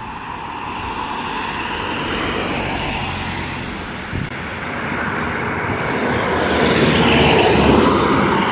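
A train approaching on the line, its rushing wheel and rail noise growing steadily louder and peaking near the end.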